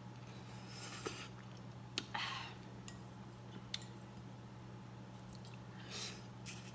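Close-up chewing and wet mouth sounds of someone eating ramen noodles, with a few short smacks and clicks, over a steady low hum.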